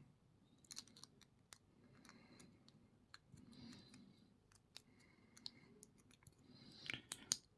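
Faint, scattered metallic clicks and taps as an ABUS C83 padlock is handled while being taken apart, with a cluster of sharper clicks near the end.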